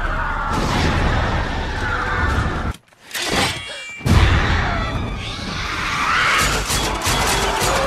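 Horror-film soundtrack of orchestral score and effects, with vampire brides shrieking. The sound drops almost to nothing just before three seconds in, then comes back with a sudden loud hit about four seconds in.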